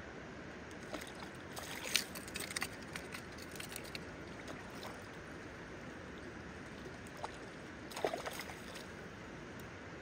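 River water running steadily, with bursts of splashing twice, around two seconds in and again about eight seconds in, as a hooked trout is worked in and scooped into a landing net.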